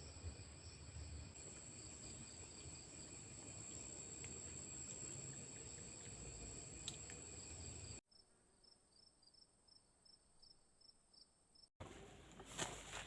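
A chorus of insects, such as crickets, trilling steadily on several high pitches. About eight seconds in it cuts abruptly to a quieter stretch of evenly pulsed high chirps, and near the end louder clicks and knocks come in.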